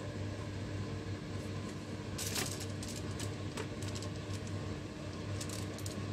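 Light plastic clicks and taps from a hand-held plunger mooncake mould being set down and pressed onto a foil-lined baking tray: a clearer click about two seconds in, a few more near the end. Under them runs a steady low hum.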